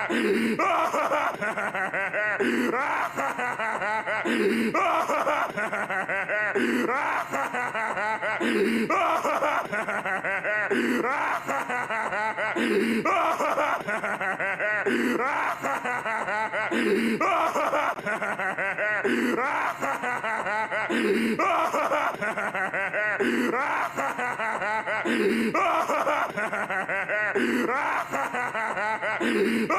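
Plankton from SpongeBob SquarePants laughing, a cartoon villain's laugh clip looped over and over, repeating about every two seconds.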